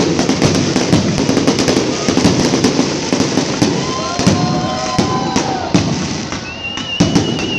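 Aerial fireworks display going off: a steady barrage of crackling and popping with repeated sharp bangs from bursting shells. About four seconds in, faint wavering whistle-like tones sound over the crackle, and a higher thin whistle holds through the last second.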